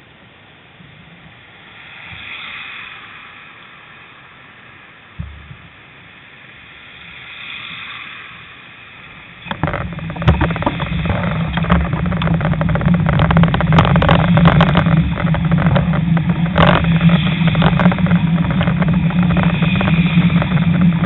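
Road sound from a bicycle-mounted camera: two vehicles swell and fade while it is quiet, then about halfway through a sudden loud rumble of wind and road buffeting on the microphone sets in, full of crackles, and keeps going.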